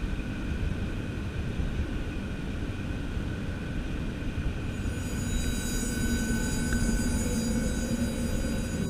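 Steady low rumble of a car driving along a road, tyre and wind noise. Soft ambient music fades in about halfway through.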